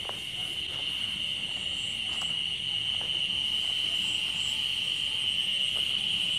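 Insects, likely crickets, trilling in a steady, unbroken high-pitched chorus, with fainter chirps coming and going above it and a few faint ticks.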